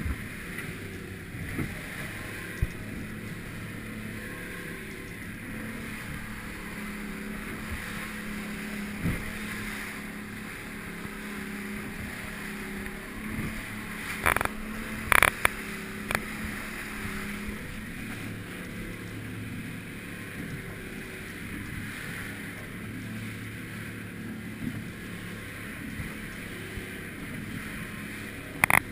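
A fishing boat's engine runs steadily under way with a low hum, while water rushes along the hull. A few sharp splashes of spray strike, a cluster about halfway through and another near the end.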